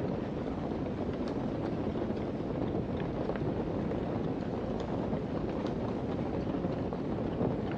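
Fire burning: a steady low rushing noise with faint, scattered small crackles.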